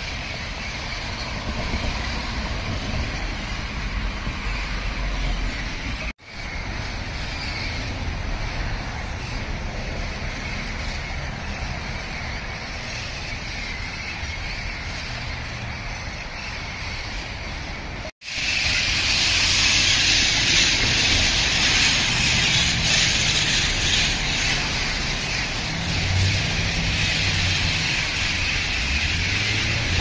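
A large flock of feral parrots squawking overhead in a constant, dense chorus of calls. The sound drops out briefly twice, about six and eighteen seconds in, and the chorus is louder after the second break. A low rumble runs underneath.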